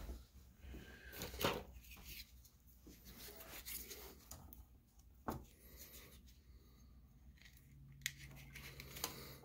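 Quiet handling of the fan's wires and a small hand tool: rustling, with a few sharp clicks or snips, the loudest about one and a half seconds in and again about five seconds in.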